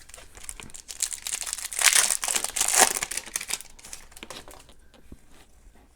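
Crinkling of a hockey card pack wrapper as it is torn open, loudest in the middle.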